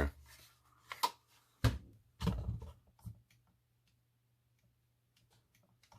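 A few light plastic clicks and knocks from handling an RC car transmitter, the loudest a dull knock a little under two seconds in, then quiet for the last few seconds.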